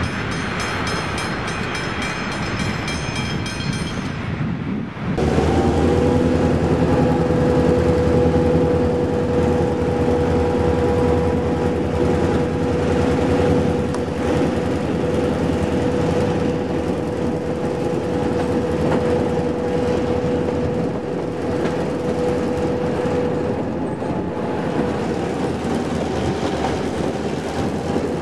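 A Victorian Railways T-class diesel-electric locomotive running under way, heard from alongside its cab: a low engine rumble with a steady whine over it. The first five seconds hold a lighter, hissy train noise that cuts off abruptly.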